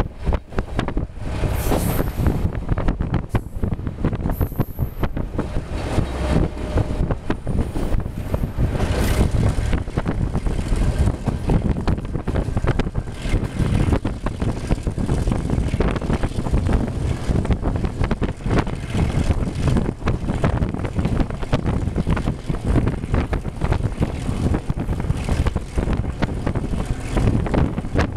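Passenger train running along the track, heard from on board: a steady low rumble and rattle of the wheels on the rails, with wind noise on the microphone. A brief high squeal sounds about four seconds in.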